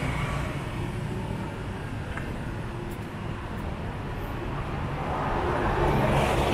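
City street traffic: cars and motorcycles passing in a steady rumble, growing louder near the end as a vehicle comes closer.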